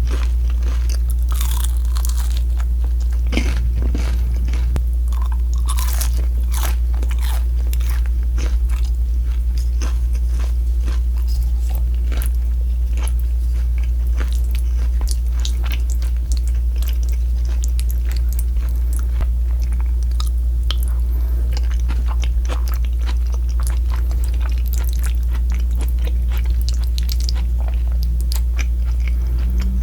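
Close-up crunching and chewing of crispy deep-fried battered pork, many crisp crackly bites one after another, over a steady low hum.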